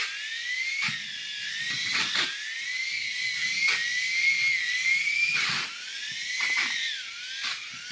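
Small electric drive motor of an Air Hogs Moto Frenzy RC motorbike whining, its pitch rising and falling continuously, with several short knocks and clicks along the way.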